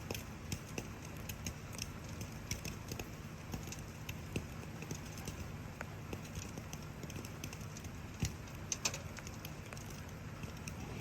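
Campfire crackling: irregular sharp pops and snaps of burning wood over a steady low background hiss, with the loudest pops about eight to nine seconds in.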